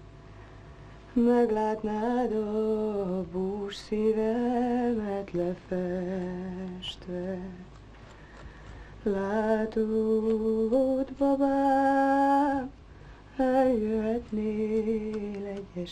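A woman singing a slow, lullaby-like song with no accompaniment, in phrases with long held notes and short pauses between them.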